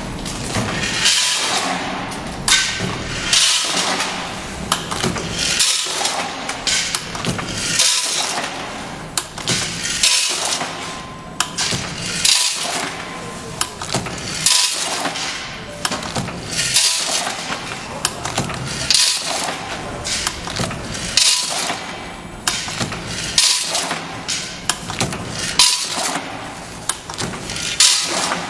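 Vertical form-fill-seal packaging machine for small granules running in a steady cycle, about one bag every two seconds. Each cycle brings a hissing rattle of granules pouring into the bag and sharp clinking knocks from the sealing and cutting mechanism.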